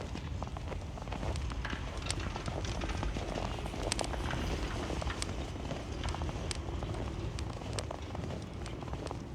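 Footsteps crunching through snow, many irregular sharp crunches, over a steady low wind rumble on the microphone.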